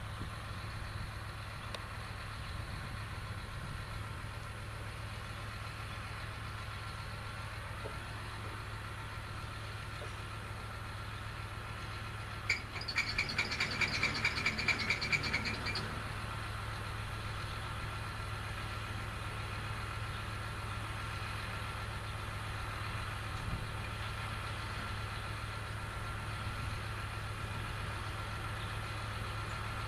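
Tractor pulling a large square baler, its engine running steadily in the distance. About twelve seconds in, a rapid high-pitched rattling chatter sounds for about three seconds.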